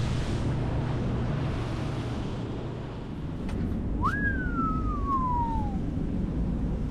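Boat running at speed across open water, a low steady rush of wind and water on the microphone. After a cut about three seconds in, a single whistled tone jumps up and then slides slowly down for under two seconds.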